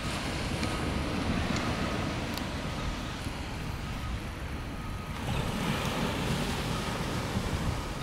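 Surf washing on a sandy beach, with wind rumbling on the microphone; the surf grows louder a little after halfway.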